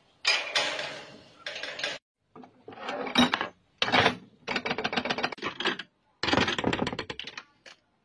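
Bent steel-rod latches and their steel rings clinking and rattling as they are worked open and shut, in several separate bursts of rapid metallic clicks.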